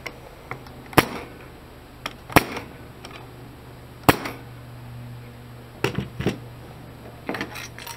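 Pneumatic air stapler driving three staples into a wooden board: three sharp shots, about a second and a half apart.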